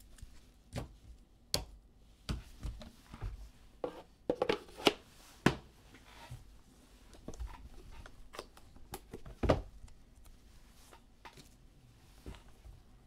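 Trading cards and their hard plastic graded-card cases being handled: irregular clicks, knocks and rustles, the sharpest knocks about five and nine and a half seconds in.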